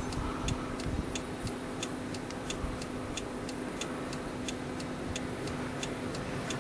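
Light, even ticking, about four ticks a second, over a low rumble of wind on the microphone and a faint steady hum.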